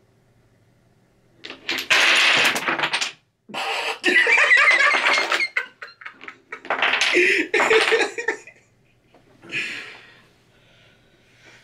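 Wooden Jenga tower collapsing, its blocks clattering down onto the table about a second and a half in, followed by several loud bursts of laughter.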